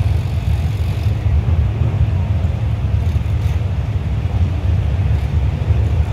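Dirt-track race car engines running, heard as a steady, loud low rumble without breaks.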